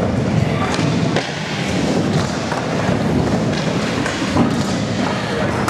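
Skateboard wheels rolling over a concrete bowl, a steady rumble with a few sharp knocks, echoing in a large hall.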